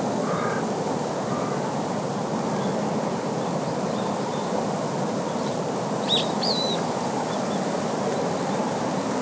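Steady rushing outdoor ambience with a few short bird calls; the two clearest calls come about six seconds in.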